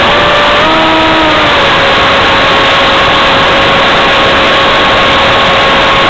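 An RC flying wing's motor and propeller heard from the onboard camera: a steady pitched drone over loud airflow rush. The pitch steps up slightly about half a second in, then holds.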